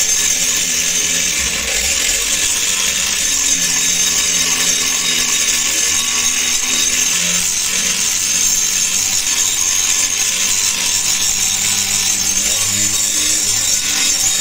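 Handheld angle grinder with an abrasive disc grinding the steel blade of an old meat cleaver clamped in a vise: a steady, continuous hissing grind of disc on metal over the motor's run.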